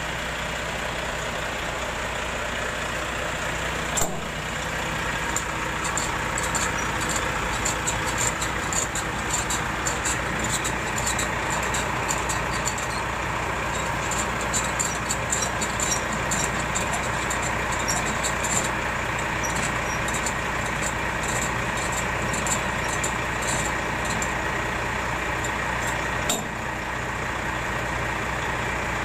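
Truck's diesel engine idling steadily, with scattered light clicking and two sharp knocks, one about four seconds in and one near the end.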